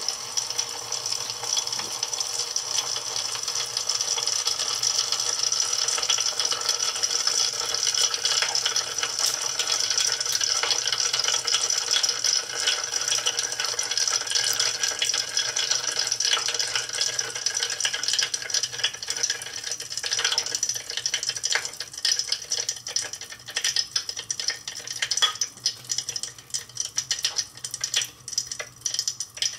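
Dense crackling and popping of many tiny manganese heptoxide flash-explosions as it ignites the ethanol layer above the sulfuric acid, thinning out to sparser separate pops in the last third.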